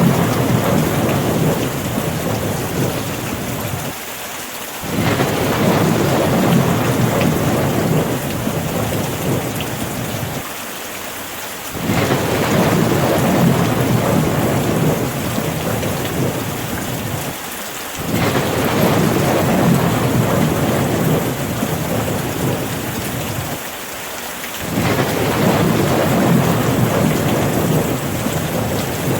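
Steady rain falling, with a low rumble that swells up suddenly about every six to seven seconds and eases off over several seconds, five times in all, in an evenly repeating pattern.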